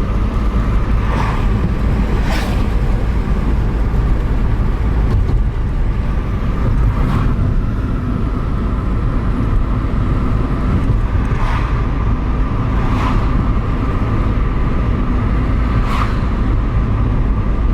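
Steady low rumble of a vehicle running, with a faint steady hum above it and a few scattered sharp ticks.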